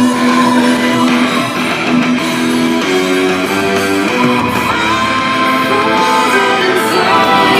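Guitar music played loud through Pioneer S-HTD510 front surround speakers under test.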